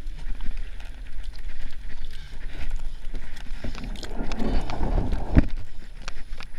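Hands and shoes slapping and squelching in wet clay mud while scrambling up a muddy bank, a run of scattered short slaps with a sharper one about five seconds in, over a steady low rumble of wind and movement on a body-worn camera's microphone.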